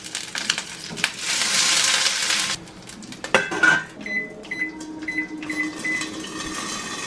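Pot stickers sizzling in hot oil in a nonstick frying pan for the first two and a half seconds. After a short, loud noise about three and a half seconds in, a Panasonic microwave's keypad gives a row of short, high beeps as a 2 minute 30 second timer is keyed in.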